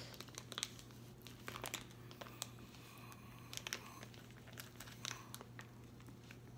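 Plastic pouch crinkling in the hands as it is gripped in the teeth and tugged at to tear it open, with scattered faint crackles over a faint steady hum.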